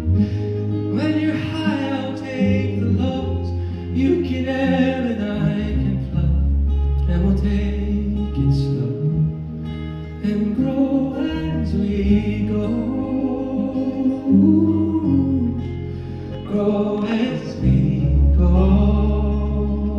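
A male singer singing a ballad into a handheld microphone, accompanied by guitar, performed live.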